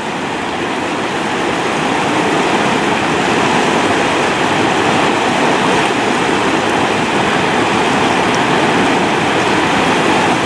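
Rushing mountain river running over rocks and through riffles, a steady close wash of moving water. It grows slightly louder over the first couple of seconds.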